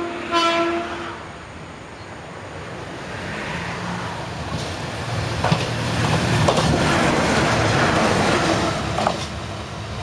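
JR Shikoku KiHa 185 diesel express railcar sounding one short horn blast about half a second in, then approaching and running past with its diesel engine and wheels on the rail. The rumble builds to its loudest over the last few seconds, with clicks of the wheels over the rail joints.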